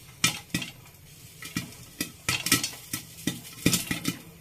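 Popcorn kernels popping in hot soybean oil in a glass-lidded pot: irregular sharp pops, a few a second, over a faint sizzle of the oil.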